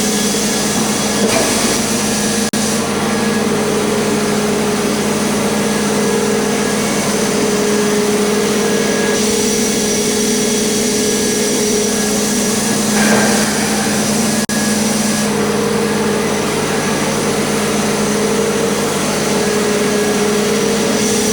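Sawmill running steadily, a constant engine-and-blade drone that holds one pitch, with two brief dropouts in the sound, the first a couple of seconds in and the second about two-thirds of the way through.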